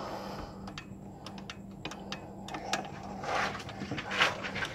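Irregular light clicks and a couple of short scrapes, about three and four seconds in, from a wrench working at the alternator's mounting bolts to loosen them for a belt change.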